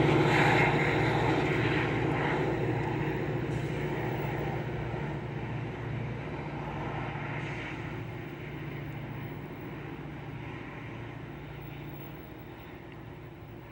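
Metra diesel locomotive's engine working under heavy throttle as it pushes a commuter train away from the station, a steady low drone that fades steadily as the train recedes.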